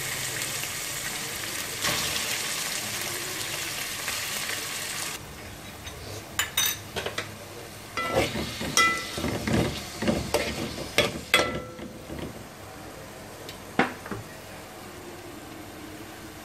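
Chopped raw chicken breast sizzling in hot oil in a metal pot. The steady sizzle cuts off abruptly about five seconds in. A spoon then scrapes and clinks against the pot as the chicken is stirred, several of the clinks ringing, with one last click near the end.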